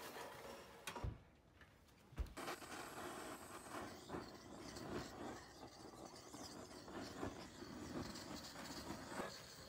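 Steel grill drawer of a wood-burning camp stove-oven pushed shut, with sharp metal clunks about one and two seconds in. After that comes a steady, faint rushing noise with small crackles.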